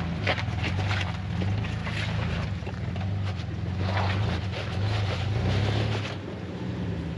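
Jeep TJ's engine running, its pitch rising and falling as the throttle is worked, with scattered knocks and clicks on top.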